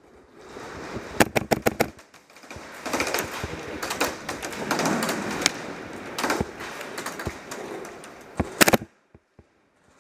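Airsoft guns firing quick strings of shots, a rapid run of sharp clicks about a second in and another short burst near the end, with rustling movement noise between.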